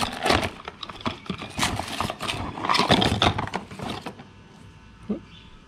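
Cardboard parts boxes being rummaged and slid against each other while a belt idler pulley is lifted out: a quick run of rustles, scrapes and knocks that stops about four seconds in.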